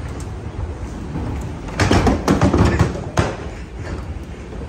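A man tumbling off the handrail onto a moving walkway's ribbed metal floor: a rush of thumps and scrapes about two seconds in, ending in one sharp knock a little after three seconds.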